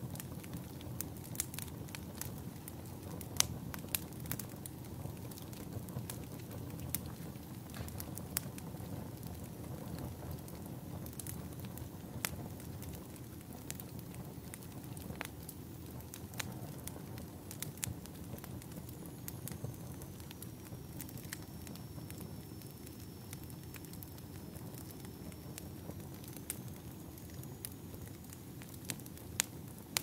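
Wood fire burning: a steady low rumble with irregular sharp crackles and pops from the burning firewood.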